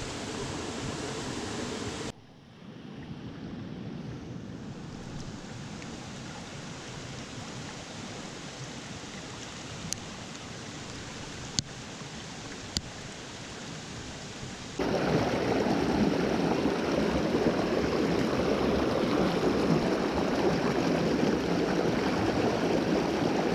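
Creek water running steadily, dropping suddenly to a quieter flow about two seconds in and jumping to a louder, fuller rush about two thirds of the way through. A few faint clicks come in the quieter stretch.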